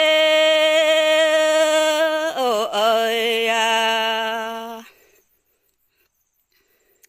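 A woman singing unaccompanied in the Red Dao lượn folk-song style: a long held note with a slight waver, a dip in pitch about two and a half seconds in, then a lower held note that fades out about five seconds in.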